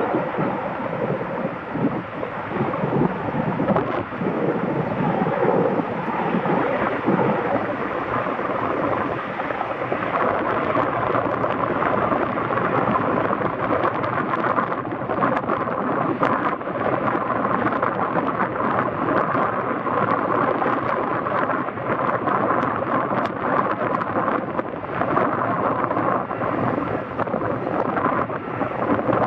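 Sikorsky CH-54A Skycrane heavy-lift helicopter heard from a distance: its twin turbine engines and big rotors give a steady, noisy drone with no clear beat.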